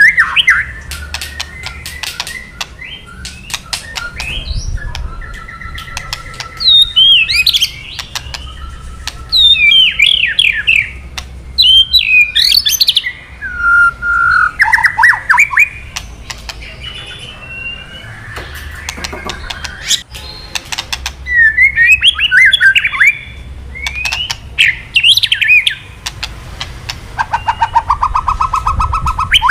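White-rumped shama (murai batu) singing. Quick whistled phrases sweep up and down, broken by many sharp clicking, crackling notes (kretekan), and a fast even trill comes near the end.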